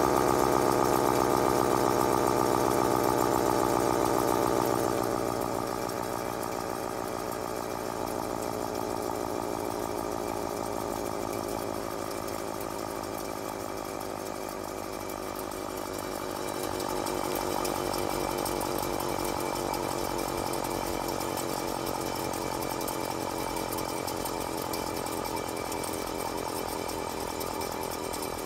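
Federal Model 78 dual-tone mechanical siren coasting down unpowered, its rotor spinning down so the wail slowly falls in pitch. It drops in level about five seconds in and then carries on lower and steadier.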